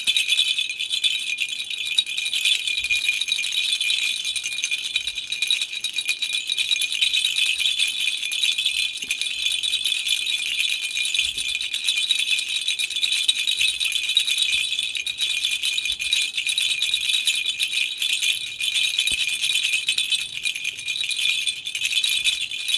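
Baby rattle shaken without pause, a steady, fast, high-pitched rattling of many small pieces.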